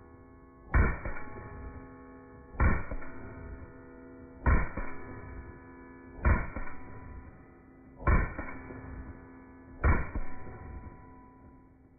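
Six shots from a Canik SFx Rival 9mm pistol, fired at an even pace about two seconds apart. Each shot is followed by a ringing tone that fades away: a steel plate target being hit.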